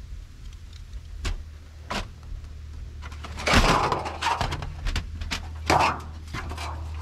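Thin sheet-metal flashing being handled on a corrugated steel roof: a couple of light clicks, then loud scraping and rattling of the metal about three and a half seconds in and again near six seconds. A low steady hum runs underneath.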